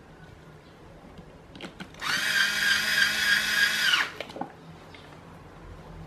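Cordless electric screwdriver running a small screw into a fan's motor housing: its motor whines at a steady pitch for about two seconds, then stops, with a few light clicks just before and after.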